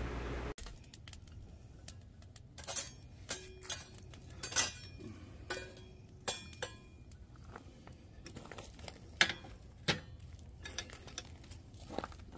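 Lump charcoal being shovelled onto a perforated steel plate with a long-handled metal shovel: scattered sharp clinks and clatters of charcoal chunks and metal, a few of them ringing briefly.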